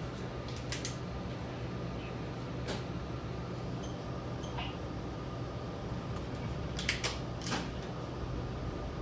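Steady mechanical hum inside a Metra commuter rail coach, with a few sharp clicks and creaks, several of them close together about seven seconds in.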